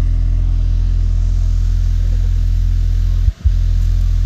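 A stacked subwoofer sound system during a sound check, playing a loud, steady bass drone of several deep tones that cuts out briefly about three seconds in.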